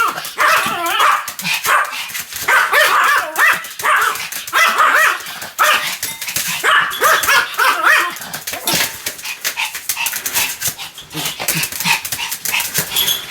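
Pomeranian barking over and over in high-pitched yaps, in clusters of quick barks that come faster and choppier in the second half.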